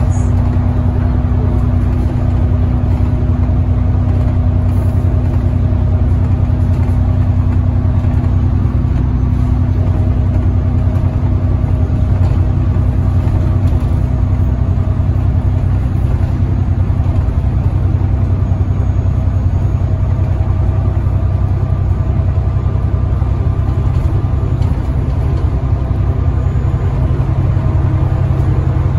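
Alexander Dennis Enviro 400 bus under way, heard from inside the passenger cabin: steady low engine drone with road noise.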